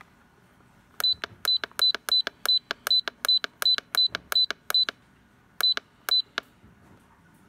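Key-press beeps from a DIGITEN HM-W2102 digital temperature controller as its stop-temperature up button is pressed repeatedly to raise the setting: eleven short, high beeps at about three a second, a brief pause, then two more.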